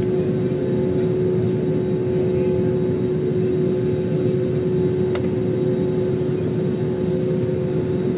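Cabin noise of an Airbus A320-family jet taxiing: a steady drone from the engines with a constant humming tone. There is one faint click about five seconds in.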